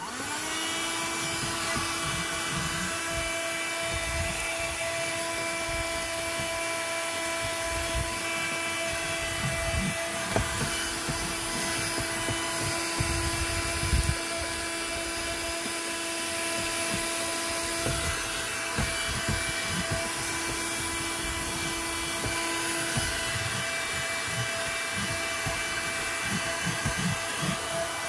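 Bullsone Extreme Power car vacuum cleaner, powered from the car's socket, switched on right at the start: its motor spins up to a steady high whine over a hiss of suction, with irregular low knocks throughout.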